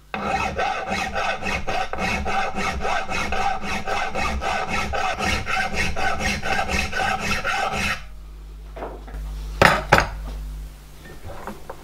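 Hand file rasping across a steel lifting link held in a filing guide in a bench vice: quick, even back-and-forth strokes, trimming the link to length, that stop about eight seconds in. Two sharp metal knocks follow shortly after, close together.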